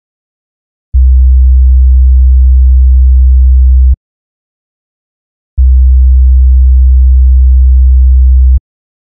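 A very low, steady sine-wave test tone for identifying a frequency by ear, played twice for about three seconds each with a short pause between.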